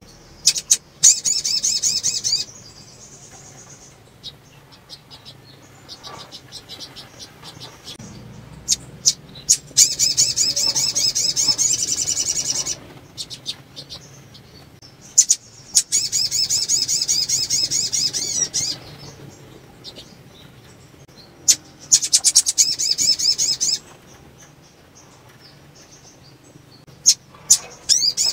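Female sogon (little spiderhunter) calling: four bouts of fast, high, rapidly repeated notes, each two to three seconds long, with short sharp chips between them. This is the call of a female in breeding condition, used to get male sogon singing.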